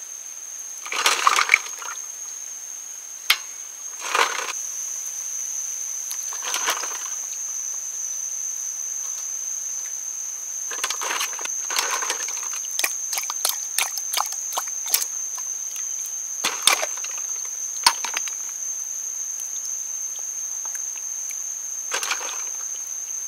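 Hands splashing and sloshing water in a metal bowl of snails as the snail meat is pulled out and rinsed, with sharp clicks of shells knocking together, over a steady high-pitched whine.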